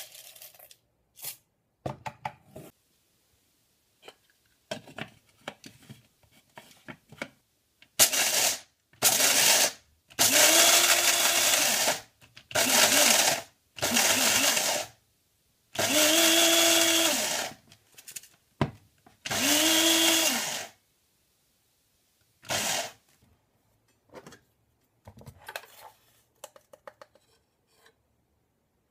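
Electric coffee grinder grinding whole coffee beans in about seven short pulses of one to two seconds each. The motor's whine rises as each pulse starts and drops as it stops. Light clicks and rattles of handling come before and after the grinding.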